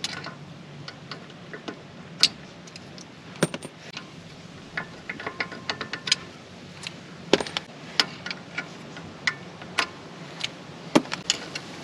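Brass punch tapping the wheel studs and hub of a Land Cruiser's front hub, using the vibration to knock the cone washers loose: irregular sharp metallic taps and clinks, some ringing briefly.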